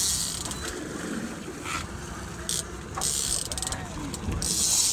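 Fishing reel whirring in short bursts as a king salmon is played close to the boat, with a quick run of clicks a little after three seconds in, over a low rumble.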